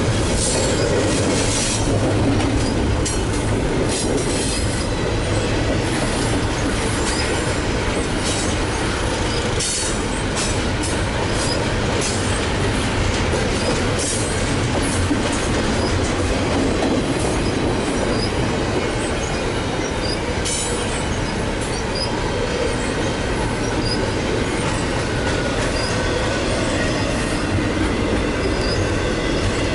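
Double-stack intermodal container train rolling past at close range: a steady rumble of steel wheels on the rails, with scattered clanks and rattles from the well cars.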